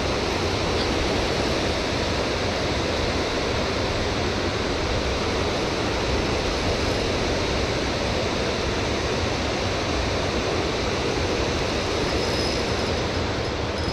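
Steady rushing of water churning below the hydroelectric dam, an even noise that does not let up. A faint thin high whine comes and goes near the end.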